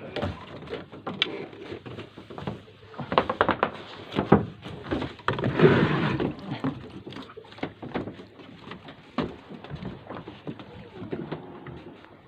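Irregular knocks, clicks and clatter, as from gear being handled on a fishing boat, with a louder, rougher burst a little past the middle.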